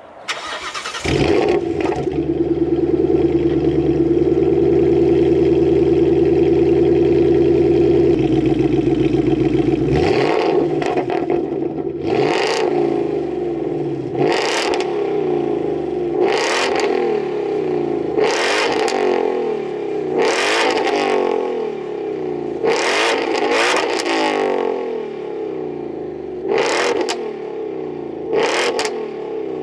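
Supercharged Ford Mustang GT V8 with a new Magnaflow X-mod cat-back exhaust starting up about a second in and running steadily at idle. From about a third of the way in it is revved about ten times, roughly every two seconds, each rev rising and falling back.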